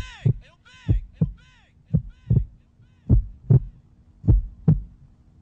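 Heartbeat sound effect in a rap track's outro: double 'lub-dub' thumps about once a second, five pairs in all, over a faint steady hum. Echoing falling tones fade out during the first second or so.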